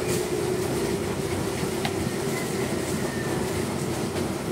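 Electric belt-driven mincer-type grinder running steadily under load, grinding fried peanuts, dried red chillies and garlic.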